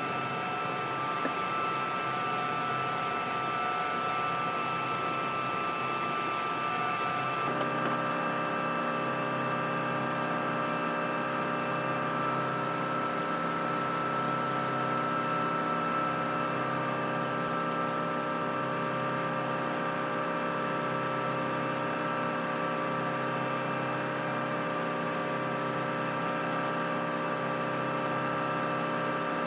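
Steady whine and hum of a Pave Hawk helicopter's turbine power running, with several held tones; the tone mix shifts abruptly about seven seconds in.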